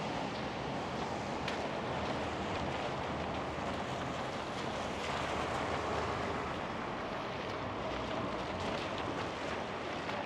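Steady city street ambience: a continuous wash of traffic noise, even in level throughout, with a few faint clicks.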